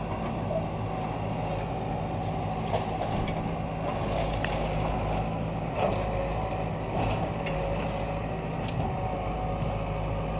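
John Deere backhoe's diesel engine running steadily under load as it tears into an old wooden farmhouse, with a few scattered cracks and snaps of the house's timber giving way.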